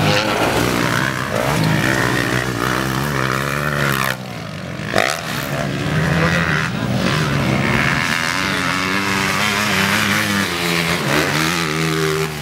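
Motocross dirt bike engines revving up and down as the bikes accelerate and shift around the track, the pitch rising and falling over and over. The sound drops briefly about four seconds in.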